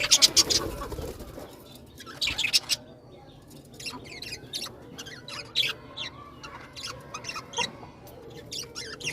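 Birds in a colony: short bursts of wing flapping, the loudest at the very start and another about two and a half seconds in, among scattered short calls.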